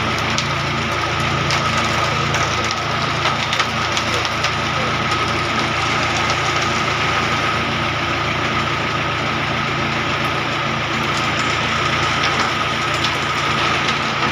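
Self-loading concrete mixer's diesel engine running steadily with a steady whine, as wet concrete slides down its discharge chute into drain formwork, with scattered small knocks and scrapes.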